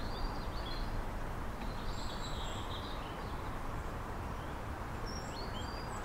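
Steady rushing outdoor background noise with small birds chirping briefly a few times, more often near the end.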